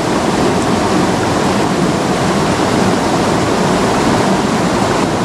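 Fast, shallow river current rushing over rocks, a steady loud rush of water.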